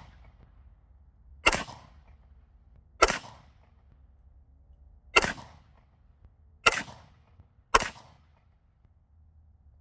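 Five single shots from a CZ Scorpion 9mm, fired one at a time at an uneven pace, each a sharp crack with a short echo tailing off.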